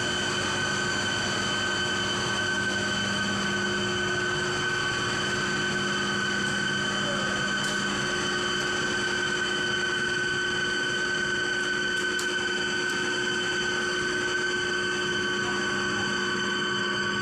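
Steady drone of cooling tower plant machinery: several fixed whining tones over a low hum, holding level without change.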